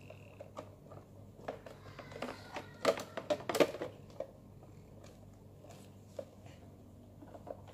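Plastic toy garbage truck being handled and turned over: a string of light plastic clicks and knocks over the first four seconds or so, the loudest about three seconds in.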